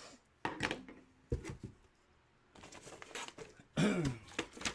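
Packaging and items being handled by hand on a table: scattered knocks and clicks, then a stretch of rustling, with a short voice sound near the end.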